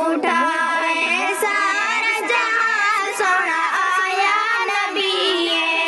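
A girl singing a naat, an Islamic devotional song praising the Prophet, her voice's melody bending and gliding up and down.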